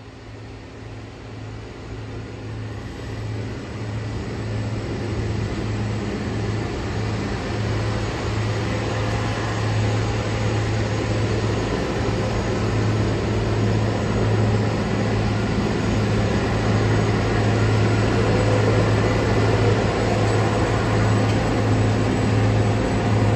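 Diesel engines of a convoy of Plasser track maintenance machines running as they travel along the rails, with a steady low engine hum. The sound grows steadily louder as they approach.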